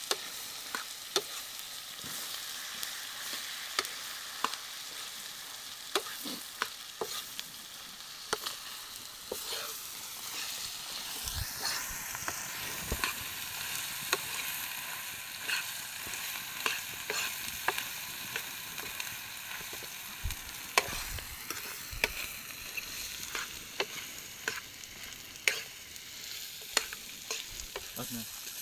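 Chicken pieces sizzling in a black kadai, with a metal spoon scraping and clinking against the pan as it is stirred: a steady frying hiss broken by sharp clicks of the spoon.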